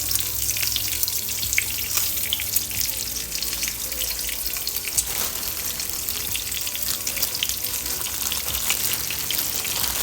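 Food sizzling and crackling steadily in a hot frying pan, with frequent small pops: a sausage and a tortilla frying in rendered fat.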